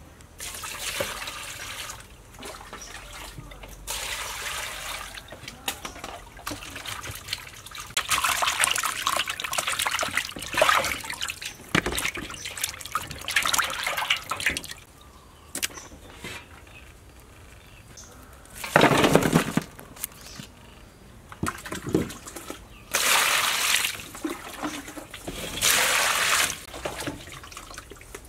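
Water splashing and sloshing in a large stainless steel basin as raw cow ribs are rubbed and rinsed by hand. It comes in a series of separate bursts of a second or two each.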